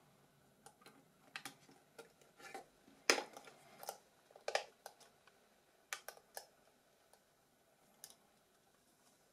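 Irregular small clicks and taps of a smartphone's parts and tools being handled during reassembly, the loudest about three seconds in and the last near eight seconds.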